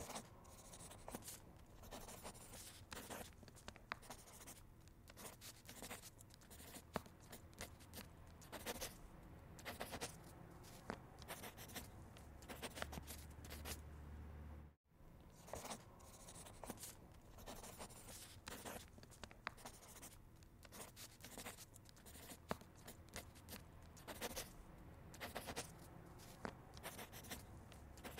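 A pen scratching on paper in quick, short strokes, the sound of drawing or writing by hand. It cuts out abruptly about halfway through and starts again at once.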